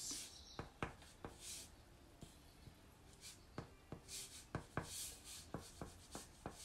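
Pastel stick rubbing over paper in short, quick colouring strokes, faint scratchy swishes with light sharp ticks in between.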